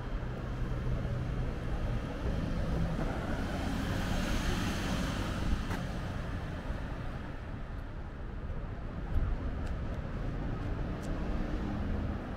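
Van-type ambulances driving by without sirens. One passes close, its engine and tyre noise swelling about four to five seconds in and then fading, and a second ambulance's engine is heard approaching near the end.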